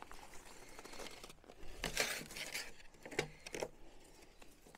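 Faint rustling and crinkling with a few soft knocks as an electric car's charging cable is unwound from a home wall charger.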